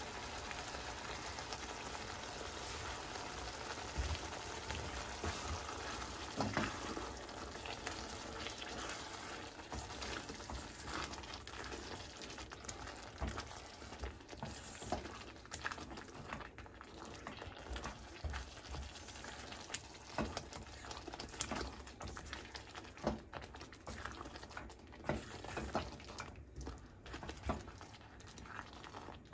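Thick tomato curry sauce bubbling and sizzling in a metal pan, with a plastic spatula stirring it and scraping and tapping against the pan. The sound is an even simmer at first; the clicks and scrapes of stirring come more often in the second half.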